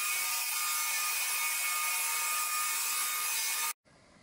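Stick vacuum cleaner running on a wooden floor: a steady high whine over a rushing hiss, which cuts off suddenly near the end.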